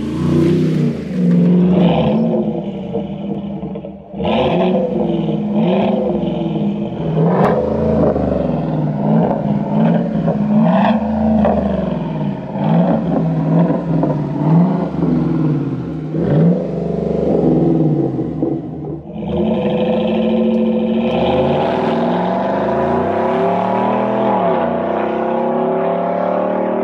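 Chevrolet Silverado V8 through an AWE catback exhaust with quad tips, revved repeatedly with the pitch rising and falling, then pulling in a longer acceleration over the last several seconds.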